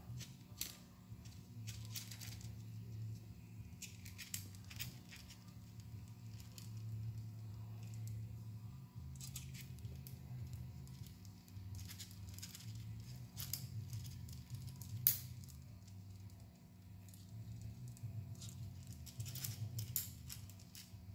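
Small tubing cutter being turned around a brake line to cut it: scattered light clicks and scraping in short clusters, with one sharper click near the middle, over a low steady hum.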